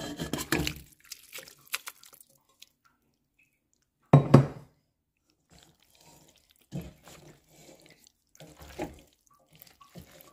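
Thick vegetable sauce poured onto cooked pasta in a stainless steel pot, landing in two louder wet plops near the start and about four seconds in. Softer wet stirring sounds follow as a wooden spatula mixes it through.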